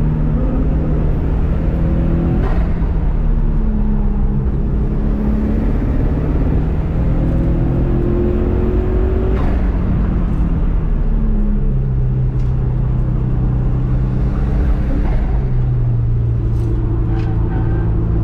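Subaru EJ207 turbocharged 2.0-litre flat-four running under hard driving on a race track. Its pitch climbs steadily, then drops sharply a few times at gear changes, and it settles at a lower, steadier note near the end.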